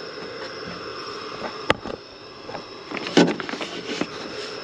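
A single sharp metal click a little under two seconds in, then a short clatter of small metal handling sounds about three seconds in, from a hex key being fitted to and worked on the Allen bolt of a car door handle.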